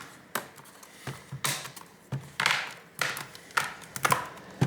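Sharp plastic clicks and taps from a tablet's plastic case and buttons being handled and pressed, about eight in irregular succession, some with a short ringing tail.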